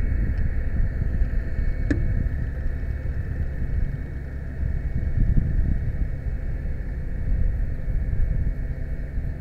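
Aerial ladder fire truck's engine and hydraulics running steadily as the ladder rotates: a low rumble with a faint steady whine, and a single sharp click about two seconds in.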